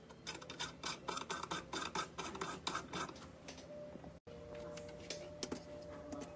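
Rapid light clicking and tapping, several clicks a second, for about three seconds. After a brief dropout about four seconds in, a faint steady hum with a thin steady tone follows.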